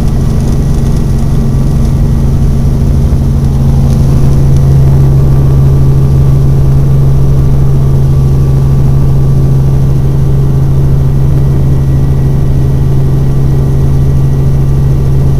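Helicopter engine and rotor running, a loud steady drone.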